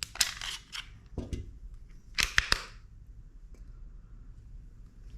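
Metallic clicks and clacks of a Beretta M9 pistol being handled, in two quick clusters: one at the start and one about two seconds in.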